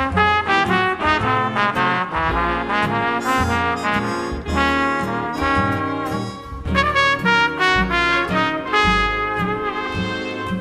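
Big band jazz background music, with trumpet and trombone carrying the tune over a stepping bass line.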